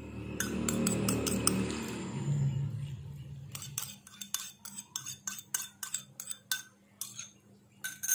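Seasoning sauce poured from a small bowl into a frying pan of pork, then a spoon clinking and scraping against the white ceramic bowl in a rapid run of taps, about three or four a second, as the last of the sauce is knocked out.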